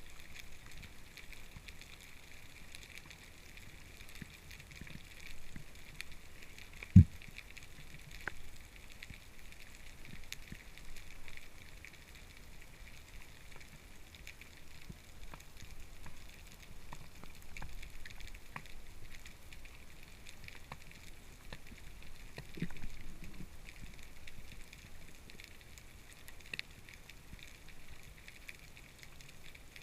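Underwater ambience picked up by a diver's camera: a steady faint crackling hiss with scattered small clicks, and one sharp knock about seven seconds in.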